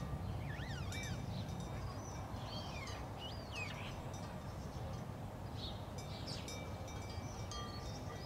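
Ambient soundscape: chirping, warbling bird-like calls and steady chime-like ringing tones over a constant low rumble.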